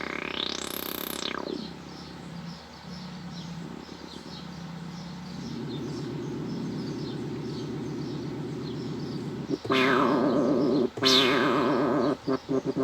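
Synthesizer tones played from an Akai MPK249 MIDI controller: a sweep that rises and falls near the start, a steady pulsing tone from about halfway, then louder notes with sharp starts near the end.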